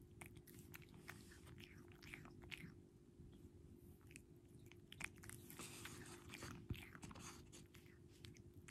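Domestic cat chewing a treat held in a person's fingers: faint, irregular clicks and crunches of its jaws over a low steady hum.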